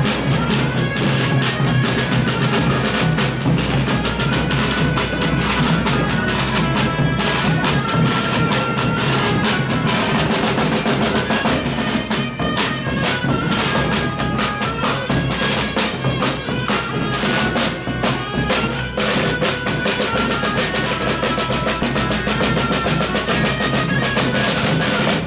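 Gaita de foles (Portuguese/Iberian bagpipes) playing a stepping melody over a steady low drone, with marching snare and bass drums beating continuously underneath.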